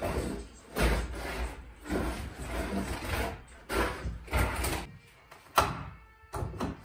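Irregular scraping and rubbing strokes as objects are handled and dragged, with one sharp knock a little over five seconds in, the loudest sound.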